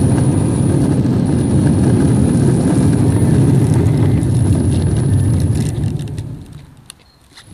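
Steady low rumble of an electric skateboard's wheels rolling fast over rough asphalt. It dies away from about six seconds in.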